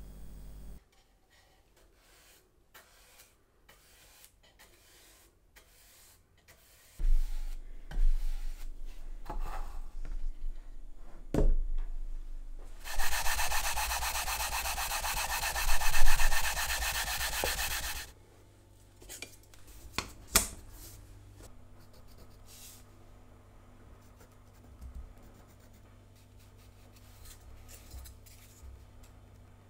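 A few knocks of wooden pieces being handled, then a piece of wood rubbed by hand with sandpaper, a scratchy back-and-forth for about five seconds, followed by a few light clicks.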